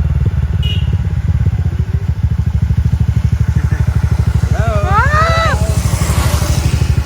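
Small motorcycle or scooter engine running close by, a steady low pulsing drone. A short wavering voice-like call cuts through about five seconds in.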